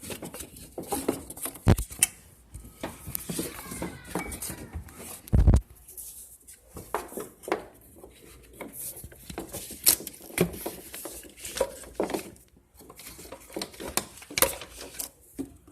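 Irregular metallic clinks and knocks of hands and tools working on a car's serpentine belt drive as a new belt is fitted, with two heavier thuds about 2 and 5 seconds in.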